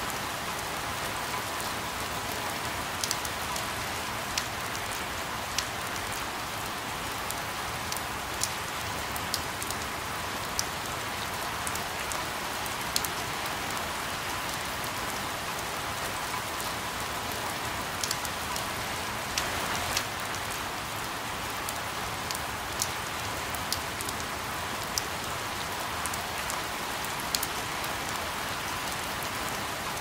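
Rain falling steadily: an even hiss with irregular sharp clicks of drops striking.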